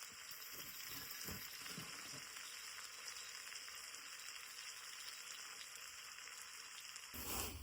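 Food frying in a pan with a steady sizzle and a few faint knocks early on; a brief louder rush near the end.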